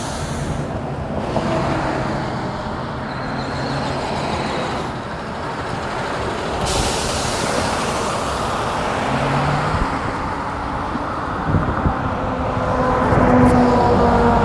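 Road traffic passing close by on a busy roadside, a steady rush of engine and tyre noise. A truck grows louder and passes near the end.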